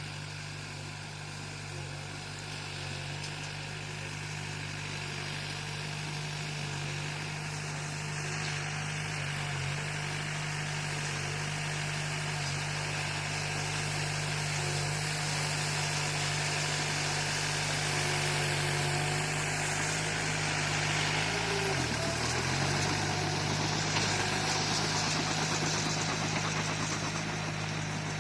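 Bulldozer's diesel engine running steadily and growing gradually louder, its note dipping briefly and recovering about three quarters of the way through.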